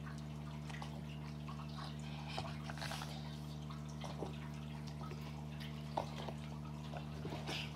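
Steady low hum under scattered soft clicks and rustles from a dog and a child scuffling on carpet, with one sharper click about six seconds in.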